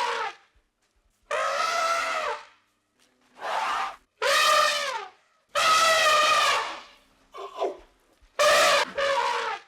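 An animal calling about six times, each a drawn-out, slightly wavering cry of about a second, with short pauses between.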